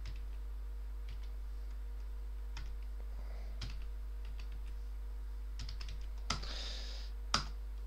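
Sparse keystrokes on a computer keyboard, single separate clicks spread a second or more apart over a steady low hum. About six seconds in, a quick run of keys ends in a louder click and a short rush of noise, and one more sharp key click follows about a second later.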